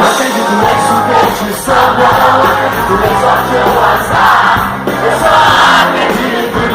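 A live pop-rock band plays the instrumental intro of a song, with the audience cheering and singing over it.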